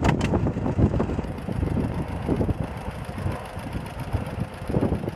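John Deere 60 tractor's two-cylinder engine running at low speed as the tractor drives across grass, a steady stream of rapid low exhaust beats.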